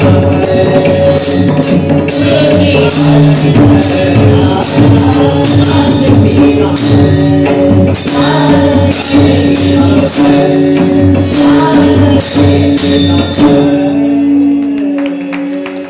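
Marathi devotional abhang music: mridang drum strokes and evenly repeated metallic cymbal-like strikes over a held drone tone. The music fades out over the last couple of seconds.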